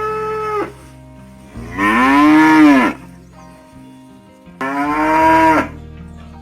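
Cow mooing: three long calls, each rising and then falling in pitch, the first already ending as it begins, the others about two and five seconds in.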